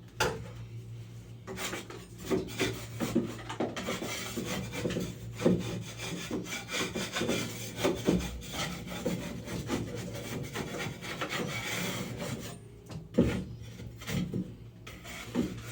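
A metal blade scraping loose paint and drywall mud off a ceiling in quick repeated strokes, with small clicks and knocks as the blade catches.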